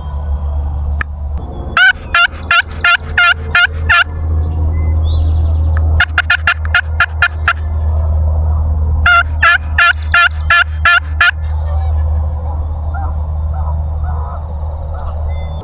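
Wild turkey gobbler gobbling three times, each gobble a rapid rattling run of notes lasting about two seconds, over a steady low rumble.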